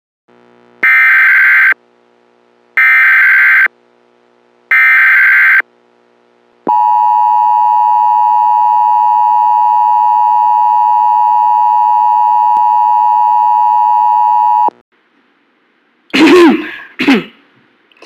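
Emergency Alert System broadcast tones: three short bursts of the screeching digital SAME header, each just under a second long and about two seconds apart. Then comes the two-tone EAS attention signal, held steady for about eight seconds. A brief voice sound follows near the end.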